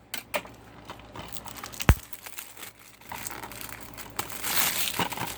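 A plastic DVD case and its packaging being opened by hand: a sharp snap about two seconds in, then plastic crinkling and rustling.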